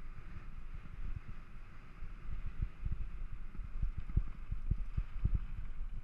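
Mountain bike riding over a rough dirt trail: wind buffeting the microphone, tyres rolling on loose gravel, and frequent low knocks as the bike jolts over bumps and rocks.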